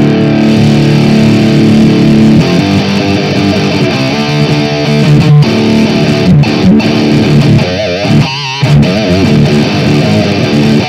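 Electric guitar played through a Soldano SLO 30W Mini amp head: sustained chords, then single notes with a wavering vibrato about eight seconds in.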